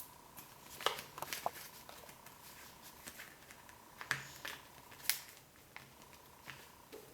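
A sheet of paper being folded and creased by hand: scattered rustles and crinkles, with a few sharper crackles about a second in and again around four and five seconds in.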